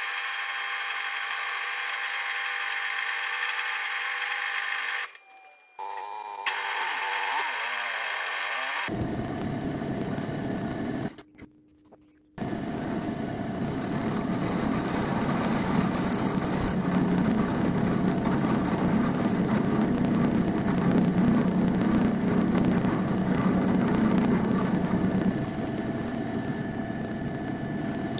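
Milling machine spindle running while drilling set-screw holes into a metal fly-cutter body, in separate stretches. First comes a steady whine of several tones, then a tone that slides lower. After a short gap comes a louder, rougher stretch of drilling with a brief high squeak about sixteen seconds in.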